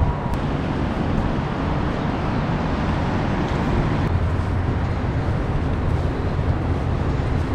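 Steady outdoor rumble, heaviest in the low end with a hiss above it, with no distinct events standing out.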